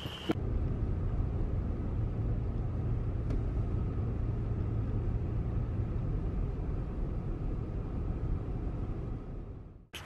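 Car driving along a road, heard from inside the cabin: a steady low rumble of engine and tyres that fades out near the end.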